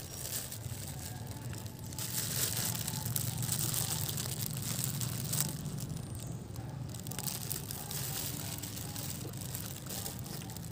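Long-tailed macaque biting and chewing crusty bread close to the microphone: dense crunching and crackling, with a break of about a second a little past the middle.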